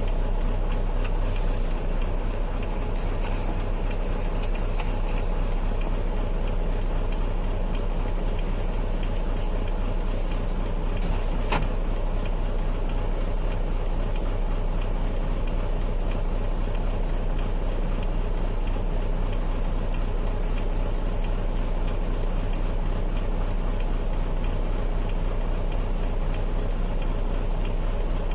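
Heavy truck running steadily on the road, with a low, even engine hum and a regular ticking about three times a second. There is one sharper click about eleven seconds in.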